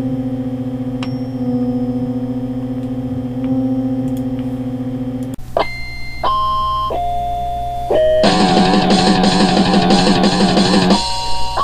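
Homemade synthesized background music. A steady droning chord gives way about five seconds in to a run of held, stepped chime-like notes. These are broken about eight seconds in by roughly three seconds of dense, distorted guitar-like sound, then the chime notes return.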